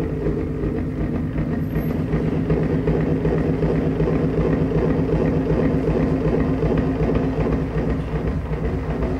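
A steady, low mechanical drone with several held low tones and a fast, even rattle running through it, from the performance's soundtrack.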